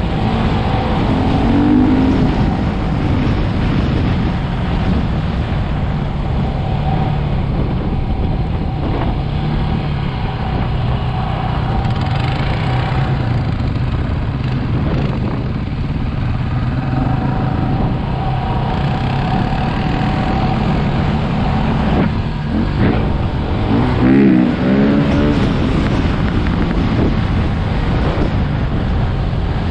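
Quad bike engine running under way, with wind rushing over the helmet-mounted microphone. The engine revs up and down briefly about two seconds in, and again a little past twenty seconds.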